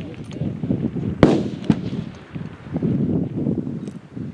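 A rifle shot on the firing line about a second in: a sharp crack followed by a rolling echo, with a fainter crack about half a second later.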